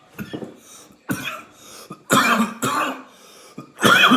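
A man coughing hard several times in a row, with throat clearing, after inhaling from a cannabis vape pen; the coughs get louder in the second half. It is the kind of coughing fit brought on by a strong, harsh hit off a freshly charged vape.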